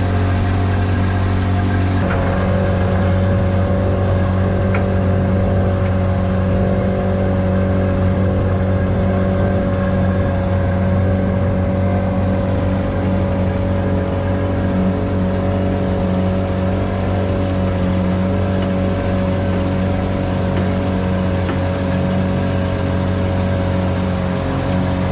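A boat's engine running steadily, a loud, even drone with a steady hum. Its tone shifts slightly about two seconds in.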